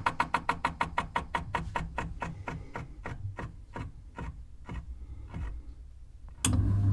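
Cooker hood extractor fan coasting down after being switched off: a rhythmic whooshing pulse that slows steadily from about nine beats a second to about two. Near the end a sharp click comes, and the hood's motor starts again with a steady low hum.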